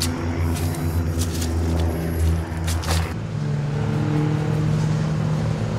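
Steady low drone of a running engine, with a few short clicks over it. About three seconds in the drone cuts off abruptly and is replaced by a different, slightly higher drone.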